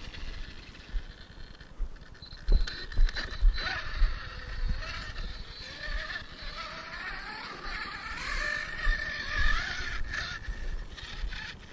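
Arrma Kraton RC truck's brushless electric motor whining, its pitch rising and falling with the throttle as it drives over dirt, with a few knocks in the first few seconds.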